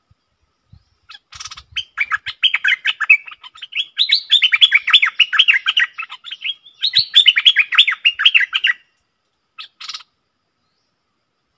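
Stripe-throated bulbul singing: two long runs of rapid chirping notes, several a second, with a short break between them. Brief harsh calls come just before the song and again shortly after it ends.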